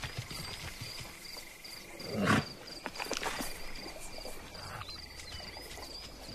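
Savanna nature ambience: insects chirping in short, evenly repeated pulses over a steady high buzz, with scattered soft clicks and one louder, short noise about two seconds in.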